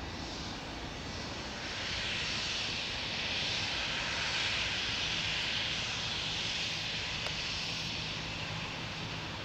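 Boeing 757 freighter's twin turbofan engines running at low taxi power: a steady jet whine and rush that swells about two seconds in. A low hum joins in over the second half.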